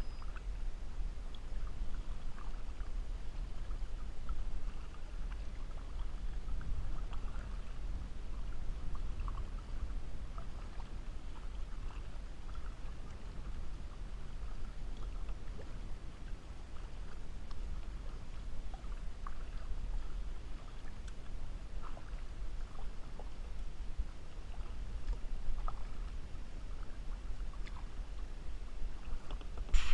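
Kayak paddle strokes in lake water: small splashes and drips from the paddle blades, scattered irregularly, over a steady low rumble.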